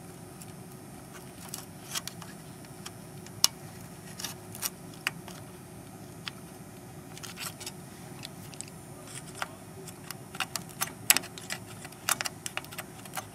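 Small screwdriver tip clicking and scraping against the pins of a 28-pin DIP chip as it is pried off a desoldered circuit board: scattered sharp ticks, coming thicker in the last few seconds. The chip does not come free; one pin is thought to be still stuck by a little solder.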